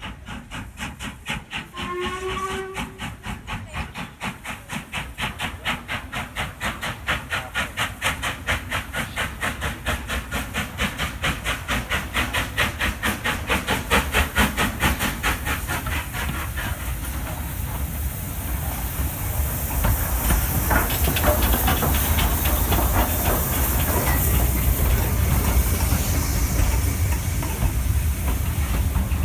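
LMS Royal Scot class three-cylinder 4-6-0 steam locomotive working a train, its exhaust beating in an even rhythm of a few chuffs a second, with a brief whistle about two seconds in. From a little past halfway a loud steady steam hiss takes over as it runs close by, with the clatter of the wheels on the rails.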